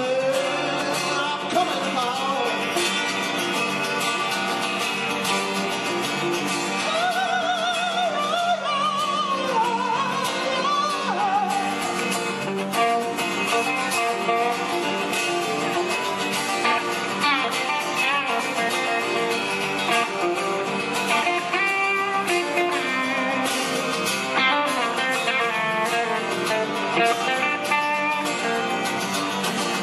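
A live band playing a song: a man singing over acoustic guitar and a hollow-body electric guitar, with drums.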